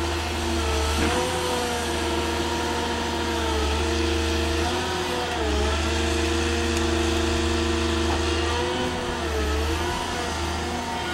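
Diesel engine and hydraulics of the machine working a tree-felling shear gripper with saw unit, running steadily with a whining tone that dips in pitch briefly twice as the hydraulics take load.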